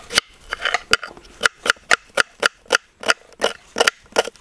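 A blade chopping food: a quick run of sharp cutting strikes, about three a second at uneven spacing.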